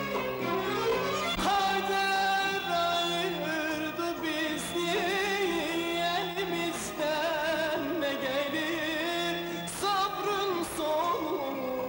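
Turkish arabesk song: a male voice comes in about three seconds in, singing with heavy, wavering vibrato over instrumental accompaniment.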